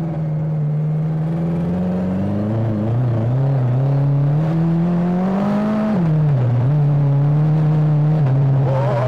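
Superbike engine in a Lada pulling under load: its note climbs steadily as the car accelerates, then drops sharply about six seconds in with a quick upshift, holds steady and steps down again near the end.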